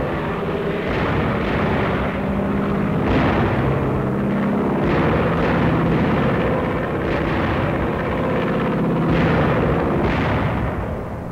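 WWII bomber engines drone steadily on a noisy old film soundtrack, broken by sudden explosions every second or two.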